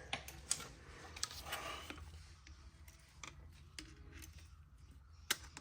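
A few scattered light metallic clicks and taps of hand tools and small parts as the pin clips are worked off a tractor's hydraulic control valve, over a faint low hum.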